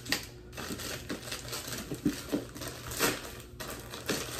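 Plastic UPS Express Pak mailer crinkling and crackling as it is torn open by hand, with irregular sharp snaps, the loudest just after the start and about three seconds in.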